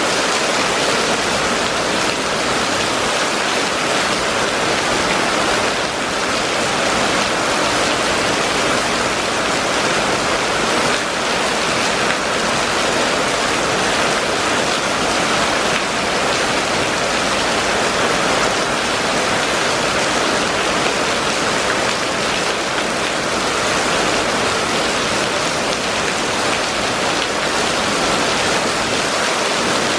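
Steady rain falling on a wet paved street and its puddles: an even, unbroken hiss of drops splashing on the water-covered surface.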